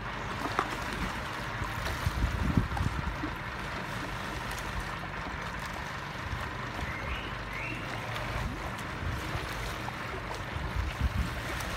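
Shallow sea water washing and lapping at the foot of a concrete boat ramp, with wind buffeting the microphone in low bumps around two to three seconds in and again near the end.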